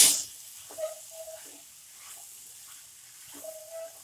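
A spatula stirring potatoes and green beans in a coated pan. It opens with one sharp knock against the pan, then scraping strokes, some with a short squeak, over a faint sizzle.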